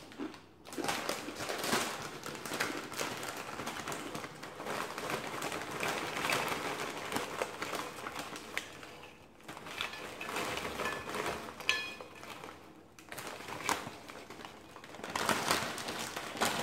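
A plastic bag of Frito Scoops corn chips crinkling and rustling as the chips are poured out, with the chips clattering onto a plate, in several bouts.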